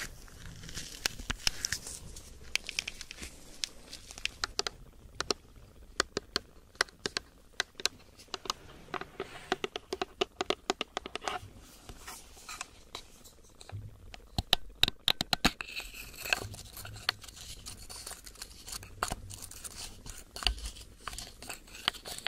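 Close crinkling and sharp irregular clicks and taps, with a dense quick run of clicks about fifteen seconds in.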